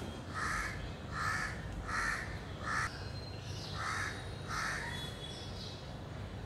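A large bird giving six short, harsh calls: four in quick succession, then a brief pause, then two more.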